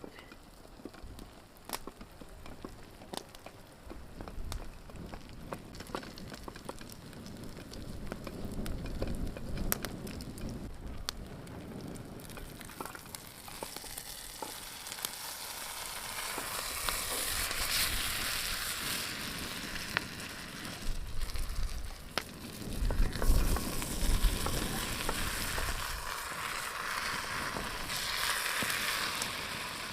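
Food frying in a pan, sizzling, with scattered sharp crackles and ticks in the first half. The sizzle grows into a louder, denser hiss from about halfway, and a few low bumps come a little later.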